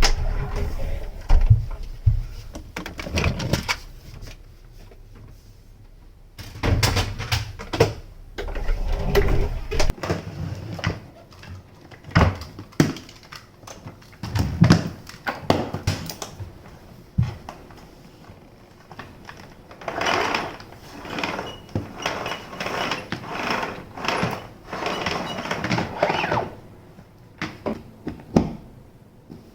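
Irregular knocks, bumps and rustling of things being handled, with a denser stretch of rustling about two thirds of the way through; no motor is running.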